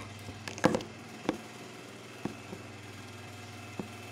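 Scattered knocks and taps from objects being handled on a table, the loudest a short cluster about half a second in, then single taps spread over the next few seconds, over a steady low hum.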